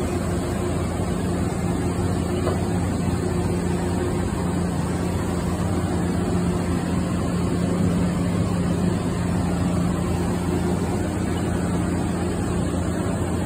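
Haas VF-2SSYT CNC vertical mill running: a steady machine hum with a low, unchanging tone and no change in speed.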